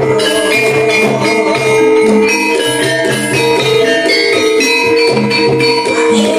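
Gamelan music accompanying an ebeg dance: tuned metal percussion rings out in sustained notes over a low note beating about twice a second.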